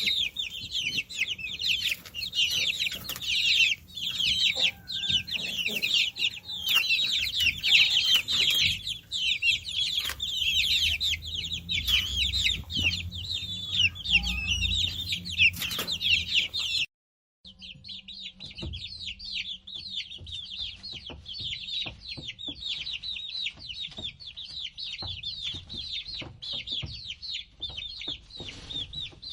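A brood of chicks peeping continuously, many short, high peeps overlapping. About two-thirds of the way through the sound cuts out for a moment, and a second, somewhat quieter chorus of chick peeps follows.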